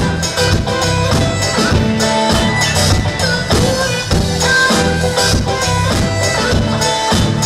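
Pop song played live by a band, an instrumental stretch with bass guitar and drums keeping a steady beat under a reedy lead melody.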